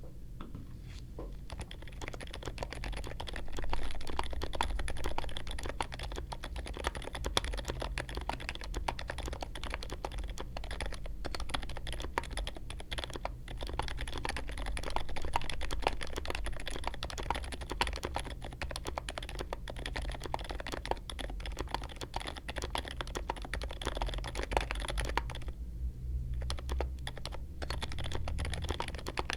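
Fast, continuous typing on a mechanical keyboard, key presses in a dense irregular stream, with a brief pause about 26 seconds in.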